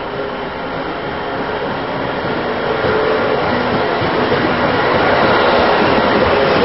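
A transit vehicle running through a tunnel, approaching and passing close by. Its rumble grows steadily louder, loudest near the end, under a faint steady hum.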